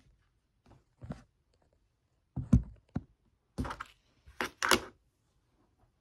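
A fingerboard (finger-sized skateboard) being handled and set down on a desk: a string of separate knocks and short scrapes, the loudest about two and a half seconds in and a quick pair near the end.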